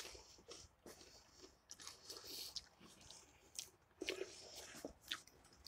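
Faint, irregular crunching and chewing of a crunchy buffalo-flavoured snack mix being eaten.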